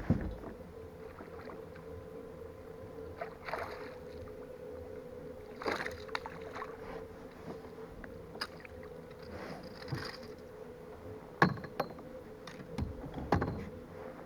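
Water sloshing and knocking against a fishing kayak's hull, with several separate knocks and splashes and a steady hum throughout.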